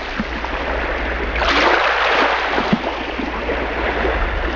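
Ocean surf: waves washing onto a shore, one surging in about a second and a half in and then drawing back, over a steady low rumble.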